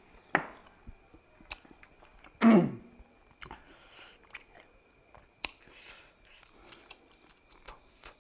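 A person chewing food close to the microphone, with wet mouth clicks and lip smacks. There are two louder bites or slurps, the first about half a second in and the loudest about two and a half seconds in.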